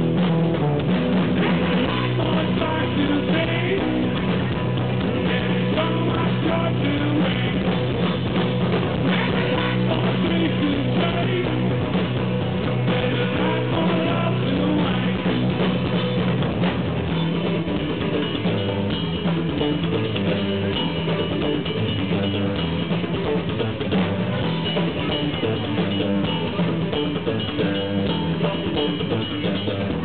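A live rock band playing an instrumental passage: electric guitars over a drum kit, steady and loud with no singing.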